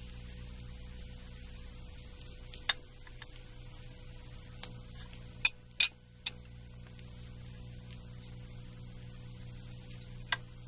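Glassware clinking: five short sharp clinks, three of them close together in the middle, over a low steady hum.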